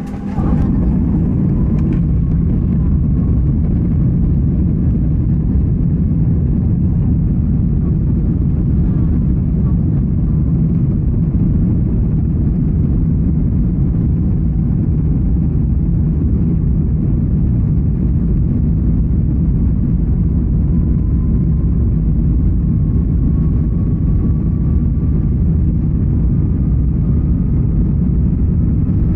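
Boeing 737 MAX 8 on its take-off roll, heard inside the cabin: its CFM LEAP-1B engines at take-off thrust and a steady, loud rumble from the runway, which comes on suddenly at the start. A faint whine rises slowly in pitch through the second half.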